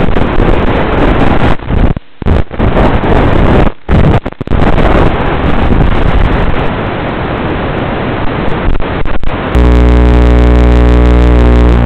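Loud, rough noise from the FPV flying wing's video link, broken by several short dropouts. About ten seconds in it switches abruptly to a steady low buzz while the crashed wing lies on the ground.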